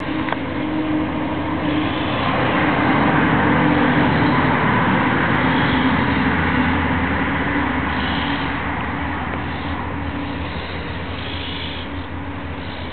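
Road traffic: a motor vehicle's engine and tyre noise with a steady low hum, swelling over the first few seconds and then slowly fading.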